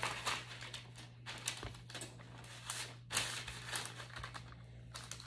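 Parchment paper crinkling and rustling in irregular bursts as it is straightened out on a baking pan.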